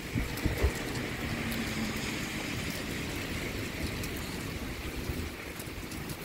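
Gusty storm wind buffeting the microphone as a fluttering low rumble, over a steady hiss. A couple of soft knocks come about half a second in.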